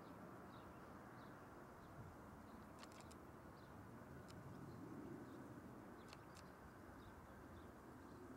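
Near silence: a faint low rumble, with a faint short high chirp repeating roughly every two-thirds of a second and a few brief clicks.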